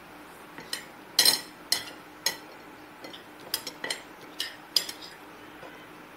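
Glass bowls and plates clinking and knocking as chopped tomato is handled between them: about a dozen sharp clinks at irregular spacing, the loudest a little over a second in.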